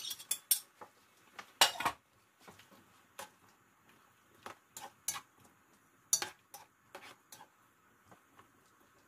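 Metal spoon clinking and knocking against a plate and the rim of a large metal cooking pot as potatoes and carrots are scraped in and stirred. The knocks are irregular, the loudest a little under two seconds in.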